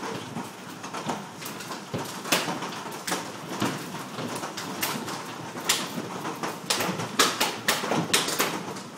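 Baseball-size hailstones striking the house in irregular hard knocks, several a second and thicker in the second half, over a steady hiss of rain and hail.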